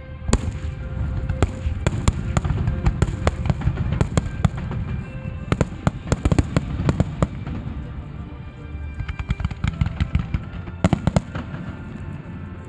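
Aerial fireworks going off in rapid volleys of sharp cracks and bangs, in three dense clusters with a lighter stretch between, over music playing underneath.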